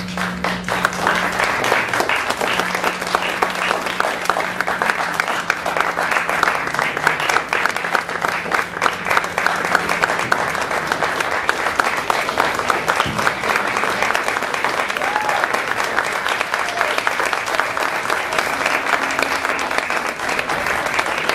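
Theatre audience applauding: dense, steady clapping that starts at once and carries on throughout, with a low held tone underneath for about the first half.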